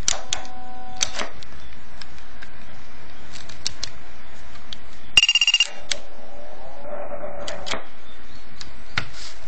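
Modified CB radio putting out steady static hiss, with a few faint tones in it. About five seconds in comes a short burst of rapid, high-pitched beeps lasting about half a second.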